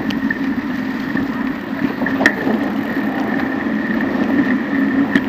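Steady rolling noise of a bicycle ridden along a rough pavement beside road traffic: a constant low hum with a thin steady high tone, and a couple of sharp clicks, one about two seconds in and one near the end.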